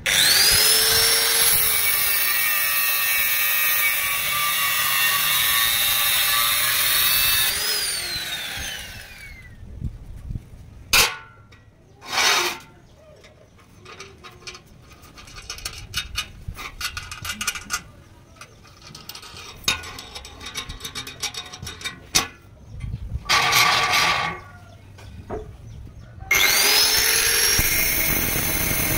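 Angle grinder with a thin cutting disc spinning up and cutting steel threaded rod, a loud high whine that winds down with a falling pitch about eight seconds in. Scattered metallic clinks and knocks follow as the rod is handled on a steel table. The grinder starts up again with a rising whine near the end.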